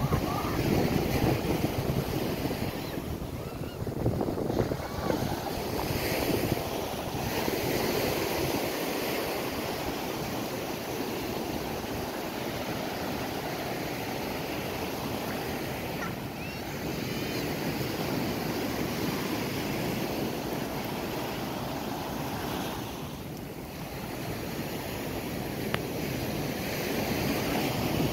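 Surf washing onto a sandy beach in a steady, swelling rush, with wind buffeting the microphone.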